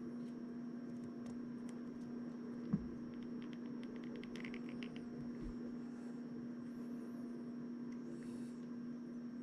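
Steady low electrical hum under faint plastic-on-plastic clicking and creaking as a plastic spudger pries at the glued seam of a wireless earbud's shell. There is a single soft thump about three seconds in, followed by a quick run of small clicks.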